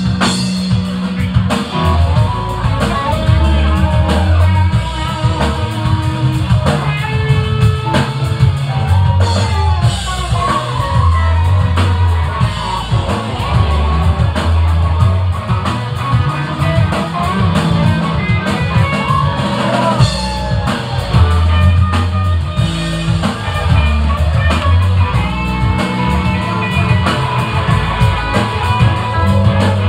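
Live rock band playing: electric guitars, bass and drum kit, loud and continuous.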